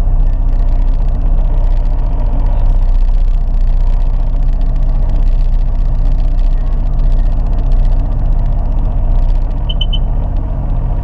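Sea-Doo GTI 130 jet ski's three-cylinder four-stroke Rotax engine idling, with a steady low rumble that does not rev up or down. Three short high beeps sound near the end.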